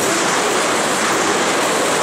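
Oil-train tank cars rolling past at speed: a loud, steady rush of steel wheels on rail.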